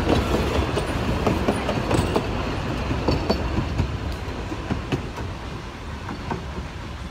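Narrow-gauge passenger carriages rolling past, their wheels clacking over the rail joints. The clacking fades and thins out as the last carriage moves away.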